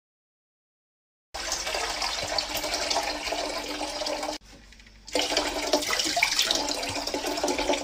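Silence, then hot water pouring from a stainless-steel kettle into a metal saucepan: a steady splashing rush that dips briefly about four and a half seconds in, then carries on.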